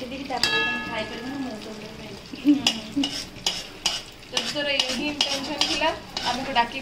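A metal spatula stirring and scraping thick masala paste as it fries in an aluminium kadai, in a run of repeated scrapes against the pan with the paste sizzling. Around half a second in, the spatula strikes the pan and it rings briefly.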